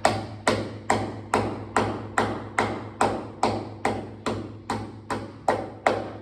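Hammer driving a concrete nail through a meter board into a masonry wall, with steady, evenly spaced blows about two and a half a second, each with a short ring. The blows stop just before the end.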